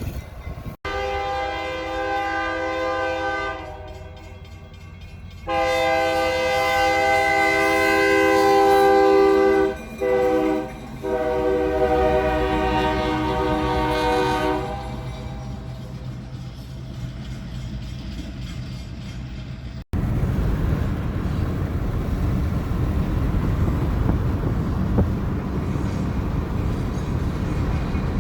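Diesel locomotive's air horn blowing the grade-crossing signal: two long blasts, a short one and a final long one, over the engine's rumble. After the horn stops the locomotive keeps rumbling, and a little past halfway a cut brings in a louder, steady rumbling noise.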